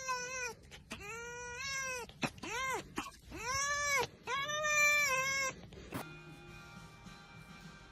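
Cat meowing over and over, about six drawn-out meows that each rise and fall in pitch, some short and some about a second long. After about six seconds there is a click, then faint background music.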